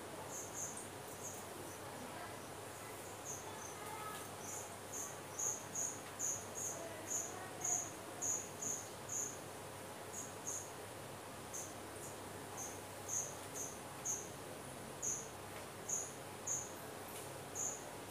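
Insect chirping: short high-pitched chirps, about two a second, in runs broken by short pauses.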